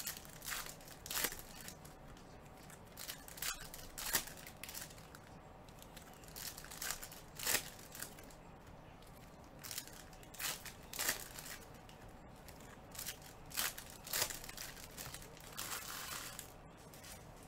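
Trading-card pack wrappers being torn open and crumpled by hand. It comes as a string of short, irregular crinkling and tearing bursts, several of them sharp.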